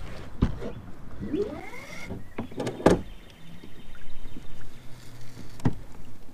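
Gear handling in a plastic fishing kayak as the paddle is set down: knocks and a creaking squeak that rises in pitch, then a sharp knock about three seconds in. After it comes a faint steady whir of a spinning reel being cranked, ending on another knock.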